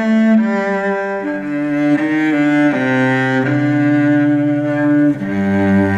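Solo cello bowed in a slow melody of held notes, each lasting about a second, dropping to a low note about five seconds in.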